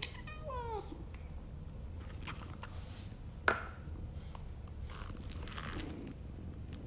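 Faint scraping and rustling, with a short falling vocal sound at the very start and a single sharp click about three and a half seconds in.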